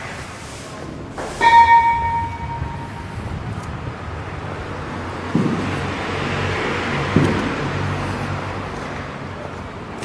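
A single sharp metallic clang about a second and a half in, ringing and fading over about a second, over a steady low hum. Two dull thuds follow later.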